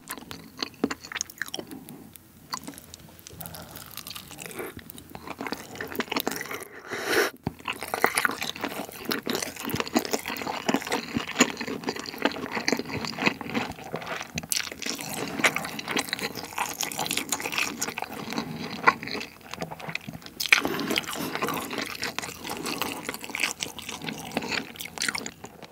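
Close-miked chewing of a forkful of handmade hamburger with bacon, egg and spicy sauce: wet, sticky mouth sounds with many small clicks.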